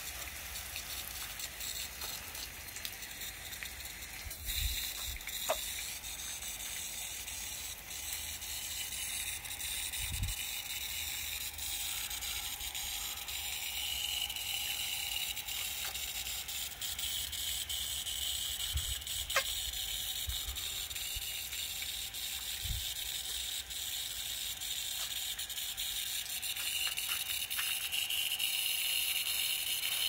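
Fine water spray hissing steadily as it falls through the leaves of a shrub and onto wet parrots. A few soft low bumps and faint clicks come through it.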